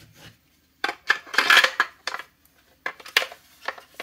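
Hard plastic parts (a cordless tool battery pack and its plastic wall mount) handled and set down on a wooden bench: a run of clicks and knocks, with a longer scraping rustle about a second and a half in.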